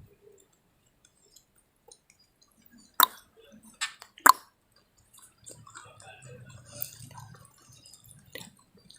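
Close-up eating sounds: wet mouth noises and chewing, with a few sharp smacking clicks, the loudest about three and four seconds in.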